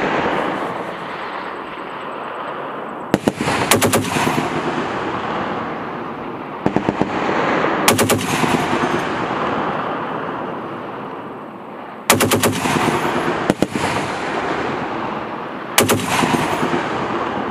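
M2 .50-calibre heavy machine gun firing four short bursts of several rounds each, a few seconds apart. Each burst is followed by a long fading echo.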